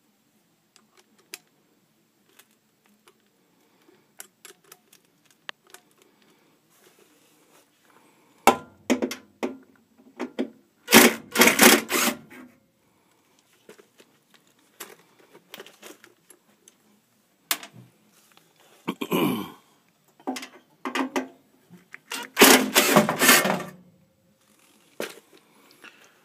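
Hand-tool and sheet-metal handling noise while screws are worked out of a gas furnace's inducer blower housing: scattered light clicks, then several louder clattering bursts of about a second each, the loudest about halfway through and again near the end.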